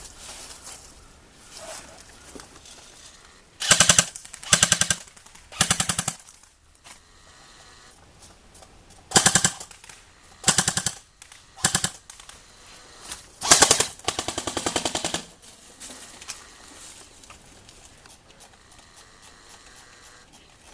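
A&K SR25 electric airsoft rifle (AEG) firing rapid full-auto bursts, its gearbox cycling on a 9.6 V battery. It fires about eight short bursts, the last and longest lasting about a second and a half.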